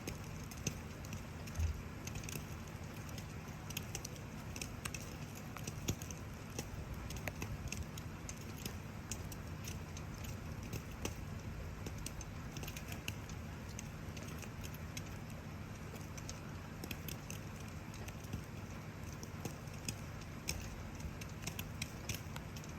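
Wood campfire crackling with frequent small sharp pops, over a steady hiss of falling rain.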